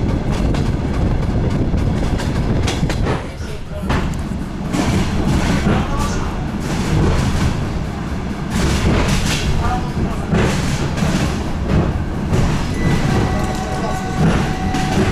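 DR1A diesel railcar under way, heard from inside the carriage: a steady low rumble of the engine and the wheels on the rails, with irregular knocks from the track. Voices murmur underneath, and a brief steady whine comes in near the end.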